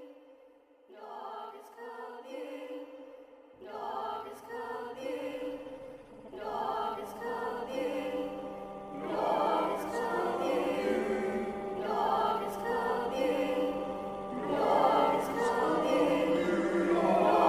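Choral music with sustained, held voices, building up in layers and growing steadily louder.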